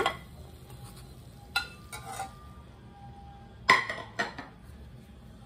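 A long-handled metal spoon knocking and clinking against a metal wok a few separate times, the loudest knock with a short ring about three-quarters of the way in, as the spoon is set down in the pan.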